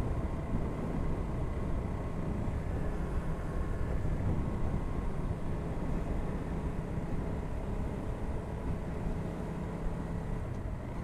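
Aprilia RS 457's parallel-twin engine running through its stock exhaust while the motorcycle is ridden, at fairly steady revs that ease off slightly near the end, with road and wind noise underneath.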